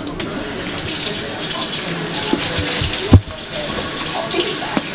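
Tap water running into a hand-washing sink as hands are rinsed under it, a steady splashing hiss. A single dull thump a little past three seconds in.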